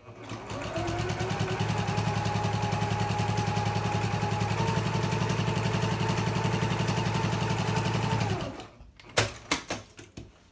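Domestic sewing machine fitted with a walking foot, stitching straight quilting lines through the layered panel: the motor speeds up over the first second, runs at a steady pace with a rapid, even stitching rhythm, then stops after about eight seconds. A few sharp clicks follow as the work is handled.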